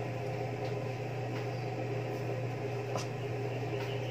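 A steady low hum over an even hiss, with a single faint click about three seconds in.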